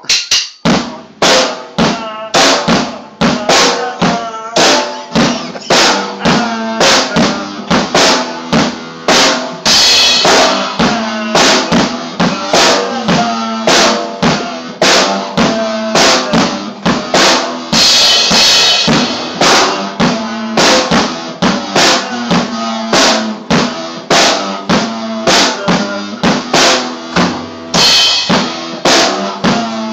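Music led by a drum kit playing a steady beat on bass drum and snare, over sustained pitched instrumental notes. Cymbals crash three times.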